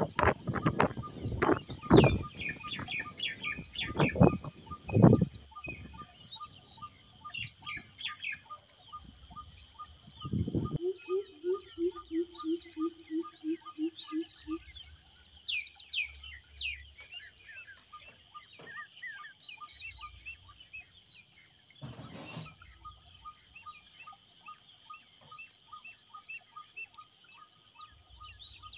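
Birds chirping and calling over a steady high hiss. About a third of the way in there is a run of low calls repeated evenly, about four a second, and the first few seconds hold several loud sharp knocks.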